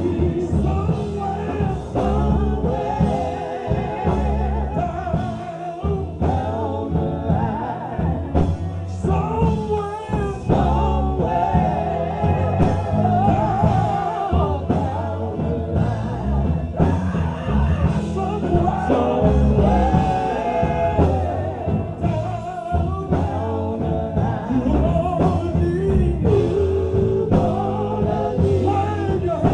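Gospel music: singing voices over instrumental accompaniment with a steady bass.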